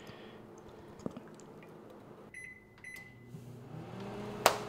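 Countertop microwave oven: two short keypad beeps as it is set, then it starts running with a low steady hum. A sharp click just before the end.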